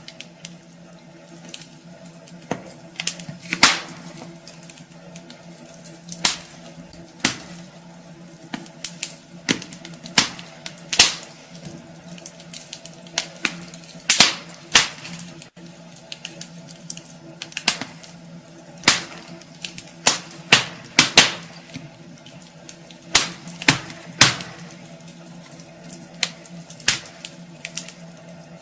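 Wood fire crackling in a fireplace: irregular sharp pops and snaps, sometimes in quick clusters, over a steady low hum.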